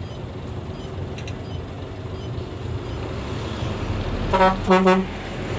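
Truck diesel engine running steadily, heard from inside the cab, then two short horn toots in quick succession about four seconds in as the trucks meet.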